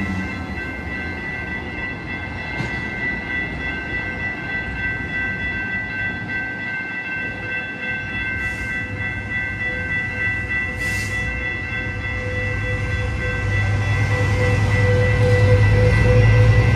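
Railroad crossing bell ringing steadily as a train approaches, its low rumble growing louder over the last several seconds.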